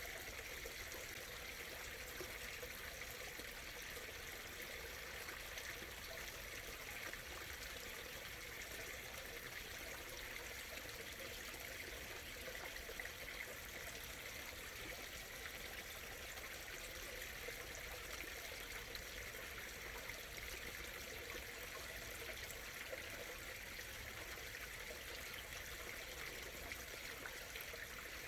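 Small stream murmuring and trickling steadily, a soft even rush of running water.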